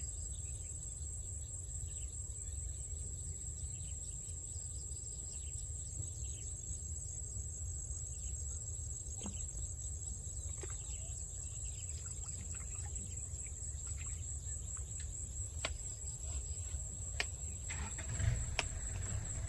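Insects trilling steadily at a high pitch over a low rumble, with a few sharp clicks in the second half.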